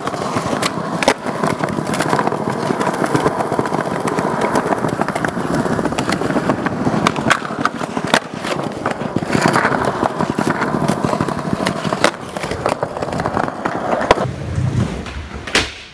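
Skateboard wheels rolling on smooth concrete, a steady rumble broken by sharp clacks and knocks from the board and wheels every so often.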